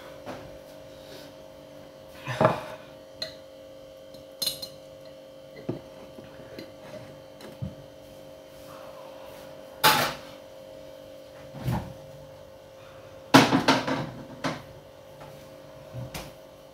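Scattered knocks and clatters of kitchenware being handled, over a steady electrical hum. The loudest knock comes about ten seconds in, and a quick run of clatters follows around thirteen to fourteen seconds in.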